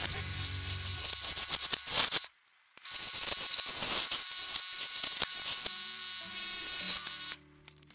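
Bowl gouge cutting into the inside of a madrone bowl spinning on a wood lathe: a steady hissing scrape with many small catches as shavings peel off. It drops out briefly twice.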